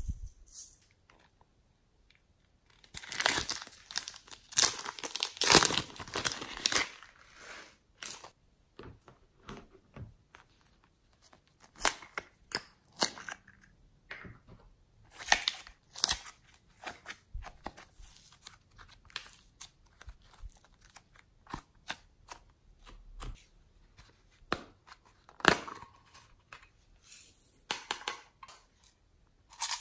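Irregular bursts of crinkling and crackling from plastic containers being handled while glitter is shaken onto slime and cups of foamy slime are squeezed. The longest, loudest stretch comes a few seconds in, with shorter bursts and quiet gaps after it.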